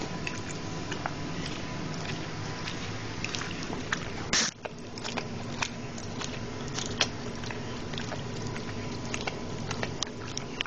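Bull terrier licking sticky peanut butter off its own legs: wet mouth clicks and tongue smacks, close up. A brief loud scrape comes about four and a half seconds in.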